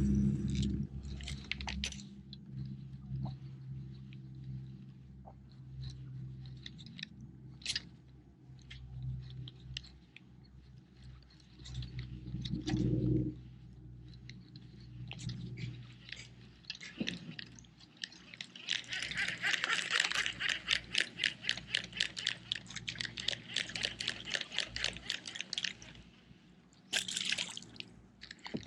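Fishing reel being cranked: a fast, even run of sharp ticks for several seconds past the middle, after scattered small clicks and taps. A low steady hum sounds at the start.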